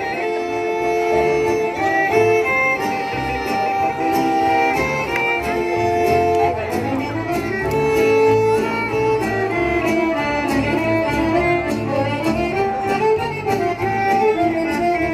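Instrumental introduction of a slow folk song: violins carry a sustained melody over acoustic guitar accompaniment.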